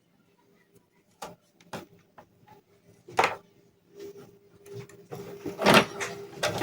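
Scattered sharp clicks and knocks of hands and tools handling a TV's circuit board and chassis, turning to denser rubbing and scraping in the second half, over a faint steady hum.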